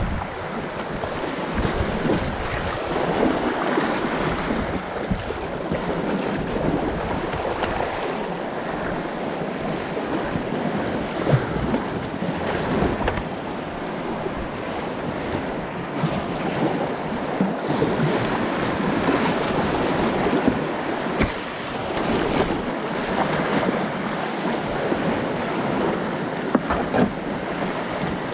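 Whitewater of an artificial slalom canoe course rushing and churning close around a kayak, surging louder and softer, with short splashes as the paddle blade dips in.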